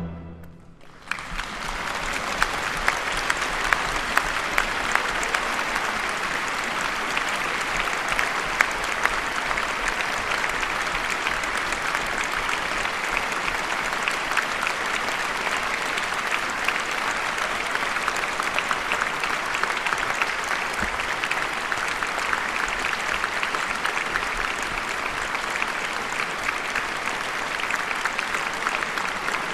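The last orchestral chord's echo fades away. About a second in, audience applause breaks out in the concert hall and continues as steady, dense clapping.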